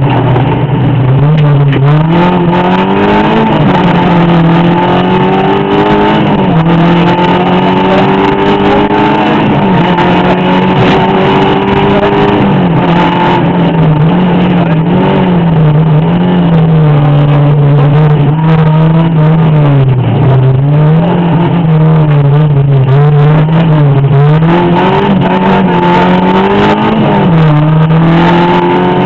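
Rally car engine under hard driving, its pitch climbing through the revs and dropping sharply at gear changes. In the second half the engine speed swings quickly up and down, on and off the throttle through a run of bends.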